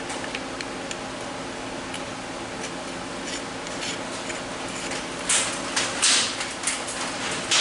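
Metal parts being handled by hand: a steel tube and a seat-adjuster jack from a 1960s Lincoln Continental seat frame clinking and scraping. There are light clicks at first, then several short clatters in the second half.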